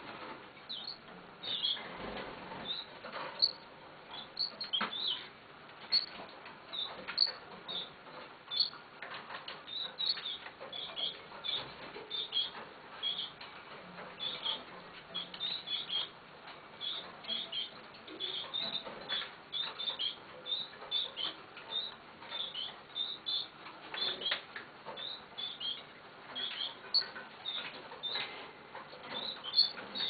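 Canary nestlings cheeping for food as the red factor canary parent feeds them: many short high cheeps, several a second, with occasional wing flutters and rustles in the nest.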